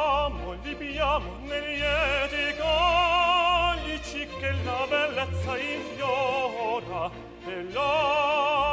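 Operatic singing with a wide vibrato, held notes and runs, over an orchestral accompaniment.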